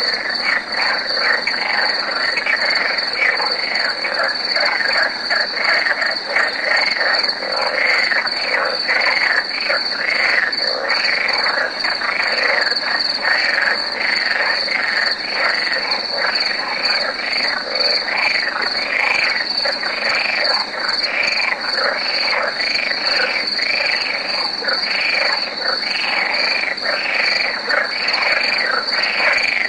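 Chorus of several male pool frogs (Rana lessonae) calling over one another, territorial 'ouais' calls mixed with mating songs in a dense rapid run of croaks.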